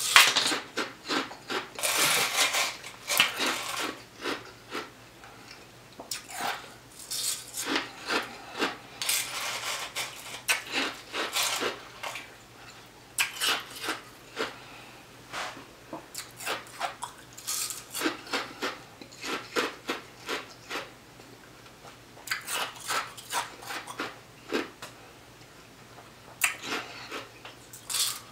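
Ice being bitten and crunched in the mouth, spoonful after spoonful, in irregular clusters of sharp crunches with a lull near the end, and a spoon clinking against the tub between bites.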